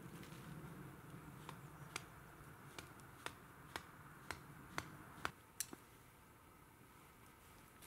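A run of faint, sharp clicks, about two a second, starting about a second and a half in and stopping about two seconds before the end, over a quiet low background.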